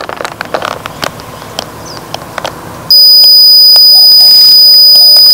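Apisolis electronic bee smoker being handled with a few light plastic clicks. About three seconds in, its buzzer sounds one loud, steady, high-pitched beep that holds on: the signal of the unit being switched off.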